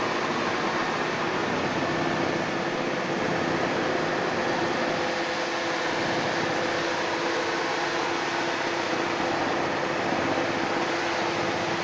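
High-pressure water spraying from a rotating underbody wash wand against the floor and the car's underside: a steady hiss, with a steady mechanical hum underneath.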